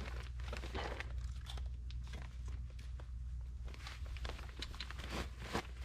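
Irregular crinkling and crunching as tissue paper and small wet sticks are handled and pushed together to build a fire.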